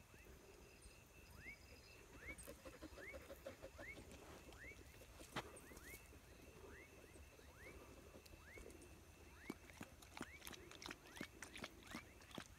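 Faint evening ambience: an animal repeating a short rising chirp about twice a second, over a steady high thin whine, with a few scattered clicks.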